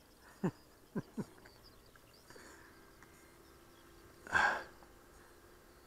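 Three light clicks as a digital hanging luggage scale and its strap are handled, then about four seconds in a short, forceful breath out, the loudest sound.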